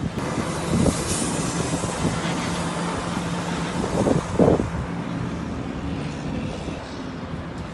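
Steady rumbling noise with a low machine hum, broken by a few thumps about one, four and four and a half seconds in.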